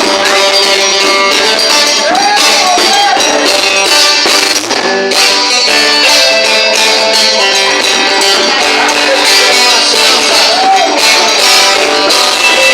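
A band playing: plucked guitar over a steady percussion beat, with almost no low end.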